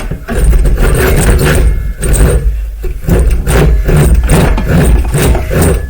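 Rhythmic scraping strokes of hand-sanding a wooden knife blank, about two strokes a second, over a heavy low rumble.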